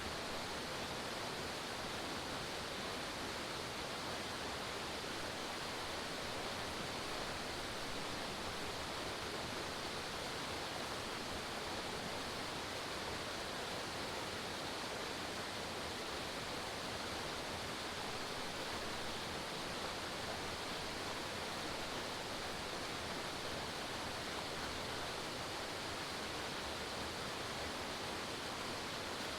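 Forest waterfall, water falling and splashing in a steady, even rush with no change.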